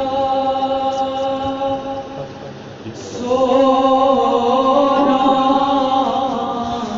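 A nohay, a Shia Muharram lament in Kashmiri, chanted in long held notes. The chanting dips about two seconds in and comes back louder just after three seconds.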